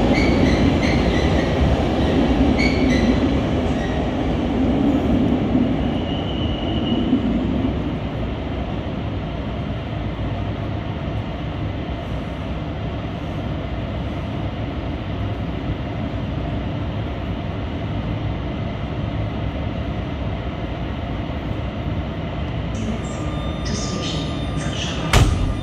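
Newag Griffin electric locomotive standing at an underground platform, its blowers and auxiliary equipment running as a steady rumbling hum that is louder for the first eight seconds or so and then settles. A single sharp knock near the end.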